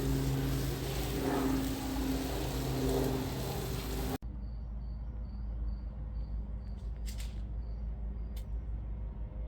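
A steady noisy rumble with low humming tones cuts off abruptly about four seconds in. After it, a cricket chirps in an even rhythm, about two chirps a second, with a couple of brief rustles.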